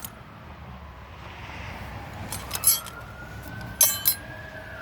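Metal tools clinking against each other a few times, two short bursts of clinks with a ringing edge, the way a wrong-sized socket is pulled off a bolt and handled.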